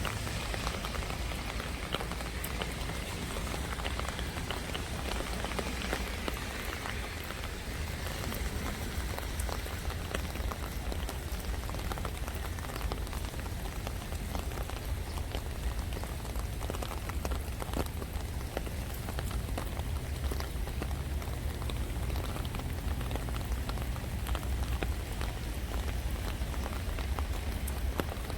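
Steady monsoon rain falling, with many individual drops hitting surfaces, over a low steady rumble.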